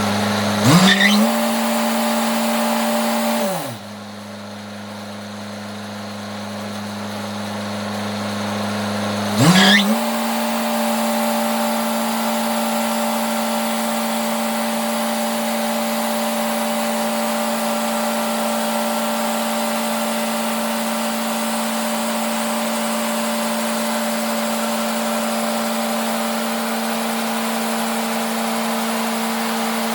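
Diesel engine running fast, dropping to idle for about six seconds, then revving back up and holding a steady high speed.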